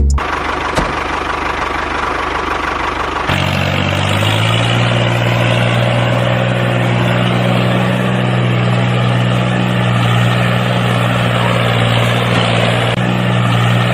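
An engine running steadily at idle, its note shifting about three seconds in and then holding even.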